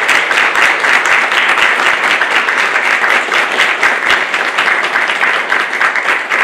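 Audience applauding: many hands clapping together in a dense, steady patter that starts to thin out at the very end.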